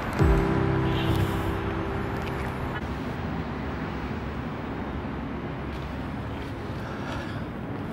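Steady road-traffic noise, with background music ending about three seconds in.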